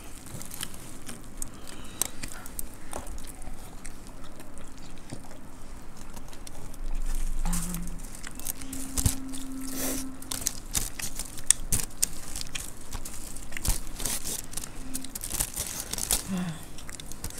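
Fingers mixing and scooping dry puffed rice and crisp sev on a plate: a dense run of small crackles and rustles from the crisp grains, with crunchy bites and chewing.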